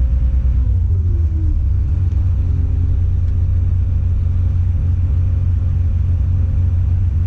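Tadano 180G-5 crane's engine running, heard from inside the operator's cab; about a second in its pitch slides down as the engine slows, then it runs steadily at the lower speed.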